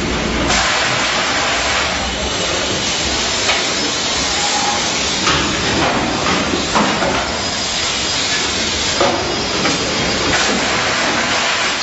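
Factory production line running: a steady hiss with occasional sharp knocks.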